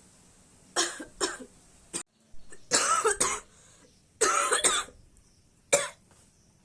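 A woman coughing deliberately, over and over, in short bursts and brief runs with pauses between, as in a forced-cough challenge.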